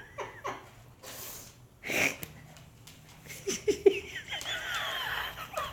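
A small pet animal's high, wavering whine over the second half, after a few short soft noises.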